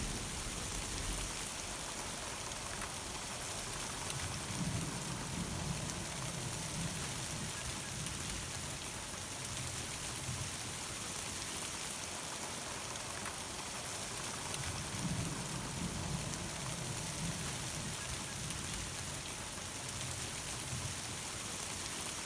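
Steady heavy summer thunderstorm rain falling, an even hiss, with two spells of faint low rumbling about five and fifteen seconds in. It cuts off suddenly at the end.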